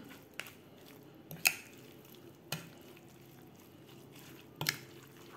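A spoon stirring raw chicken, shrimp and spiced grated coconut in a bowl: soft wet mixing with four sharp clicks of the spoon against the bowl, the loudest about a second and a half in. A faint low hum runs underneath.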